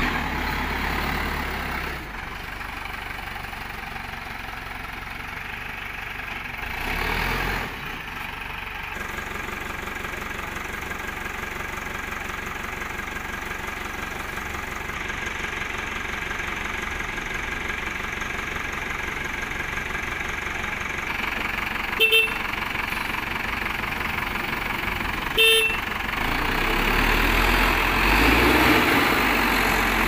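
Diesel engines of a backhoe loader and a tipper truck running steadily. Two short horn toots come about three and a half seconds apart, a little after two-thirds of the way through. The engine rumble grows louder near the end.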